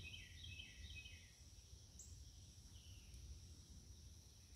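Faint birdsong: a bird repeats short chirps through the first second or so, with another brief high chirp about two seconds in, over a steady high hum and low background rumble.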